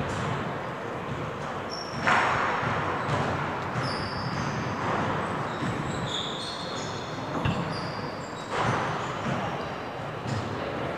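Echoing sports-hall ambience: balls striking and bouncing on the courts, with short high sneaker squeaks, and louder impacts about two seconds in and again just before nine seconds.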